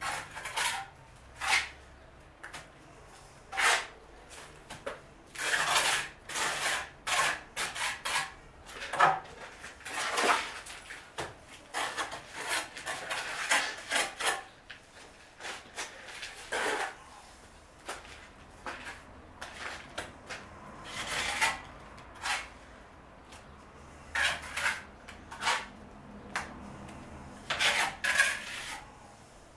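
Mason's trowel scraping over brickwork in short, irregular strokes.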